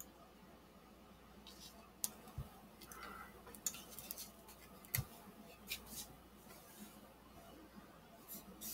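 Faint handling noise: scattered light clicks and taps as an epoxy-coated cattle skull is turned in the hands, with a slightly firmer knock about five seconds in.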